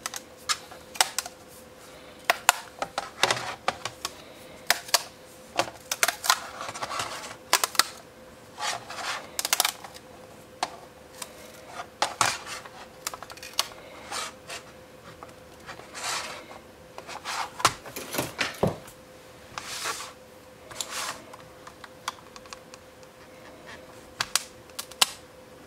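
A flexible spring-steel print sheet with a PETG print stuck to it being handled and flexed: irregular clicks, taps and knocks of plastic and metal, with a few short scrapes as the print is worked loose. Near the end a metal spatula scrapes under the print.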